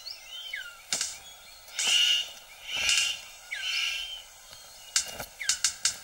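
Male superb bird of paradise calling: loud, harsh rasping calls, two of them about a second apart with a weaker one after, among thin rising and falling whistles. Near the end comes a run of sharp clicks, several a second, as he goes into his courtship display.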